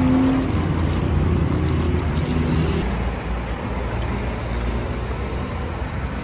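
Steady low rumble of road traffic passing a street food stall.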